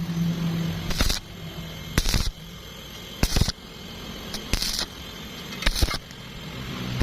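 Welding arc on thin-walled hollow tubing, struck in short bursts about once a second, each a brief crackling hiss, with a low steady hum between bursts. The arc is triggered and released repeatedly, a stitch-and-pause way of keeping heat down on thin metal.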